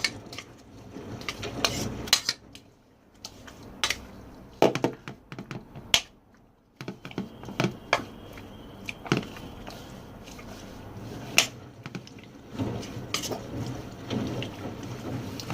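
Irregular clinks and knocks of a utensil against a bowl as pork is mixed and turned in its marinade, with a short quieter pause partway through.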